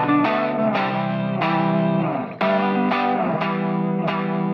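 Intro music led by a distorted electric guitar, chords struck repeatedly with sharp attacks and left to ring.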